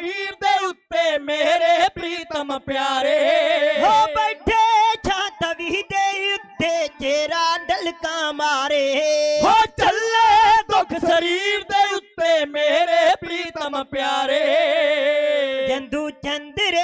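Dhadi folk singing: male voices singing long held, wavering lines, accompanied by a bowed sarangi and the quick strokes of dhadd hand drums.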